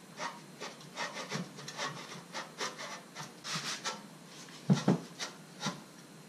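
Dual exhaust tips being twisted and slid on the exhaust pipe by hand: a run of short scrapes and rubs, metal on metal, with a louder double knock near the five-second mark.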